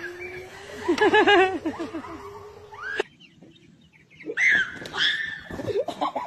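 Poultry calls: a long held note that breaks into a fast warbling run about a second in and stops suddenly. After a short lull, a few brief high squawks follow.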